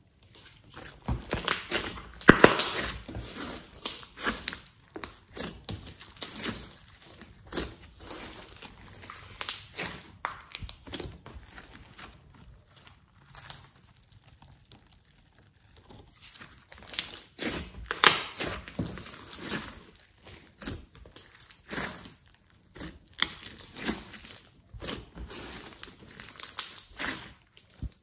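Glossy slime mixed with clay and glitter being stretched, folded and squeezed by hand, giving clusters of sticky crackles and small popping clicks. It thins out for a few seconds around the middle.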